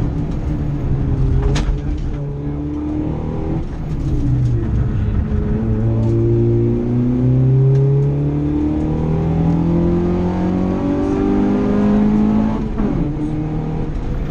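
Nissan Micra rally car's four-cylinder engine, heard from inside the cabin, driven hard: the engine note climbs through the revs and drops back at each gear change or lift, several times over. A sharp click about a second and a half in.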